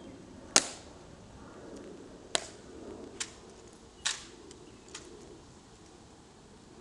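Slow, measured footsteps of ceremonial guards' shoes with metal heel taps striking the stone plaza: five sharp clicks spaced about a second apart, the loudest about half a second in.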